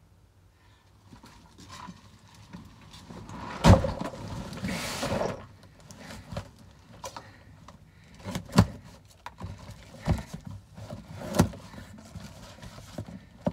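Irregular knocks and bangs, about five of them a few seconds apart, the loudest about four seconds in, followed by a short scraping rush.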